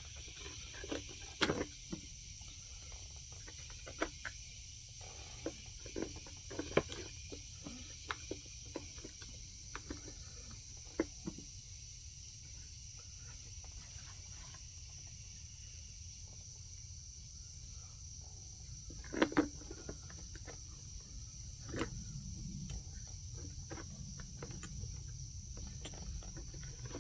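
Scattered clicks and knocks of a chainsaw's chain, bar and tensioner being handled and fitted back together by hand, busiest in the first half and again about two-thirds of the way in. Behind them runs a steady high-pitched chirring of insects.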